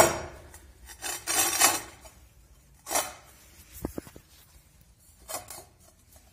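Porcelain stoneware floor tiles being handled and turned over. There is a sharp clack of tile on tile at the start, then scraping a second or so in, and a few lighter knocks and scrapes after that.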